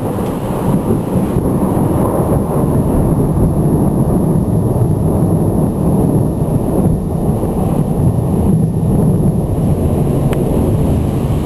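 Thunderstorm: a long, loud, low rumble of rolling thunder that holds steady throughout.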